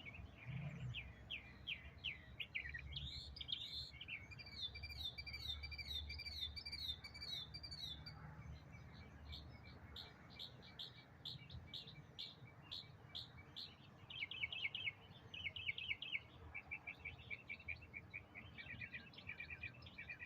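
Songbirds singing: rapid runs of short, repeated chirping notes, with a second, higher and faster series joining for a few seconds early on.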